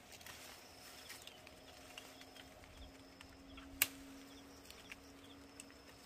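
Faint outdoor ambience: a low steady hum with scattered light ticks, and one sharp click a little before four seconds in.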